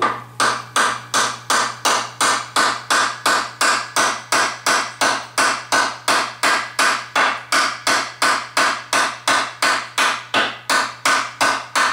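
Small hammer tapping rapidly and evenly on a metal shaft in a Zündapp scooter engine case, about three blows a second, each with a short ring. The hammer is too light and bounces off, not driving the rod out through the oil seal.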